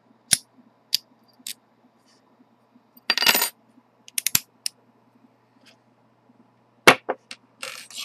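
Sharp metallic clicks and clinks of a brass Master Lock No. 150 padlock being worked with its key and shackle. A longer scraping rattle comes about three seconds in, a loud single click near the end, and then a short metal rattle.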